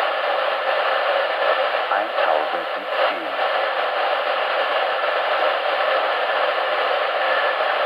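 Radio loudspeaker playing a weak longwave AM broadcast around 175–177 kHz: a steady hiss of static, with faint speech buried in it that surfaces about two to three and a half seconds in.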